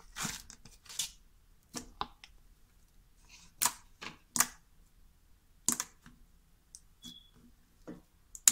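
Clicky white slime being squished and worked by hand, giving sharp clicks and pops at irregular intervals, about one every second.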